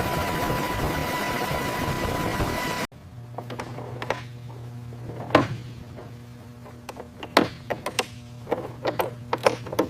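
A loud, steady helicopter turbine-and-rotor noise with a thin high whine cuts off abruptly about three seconds in. It is followed by a low steady hum with a run of sharp mechanical clicks and latches as the cockpit harness straps are buckled.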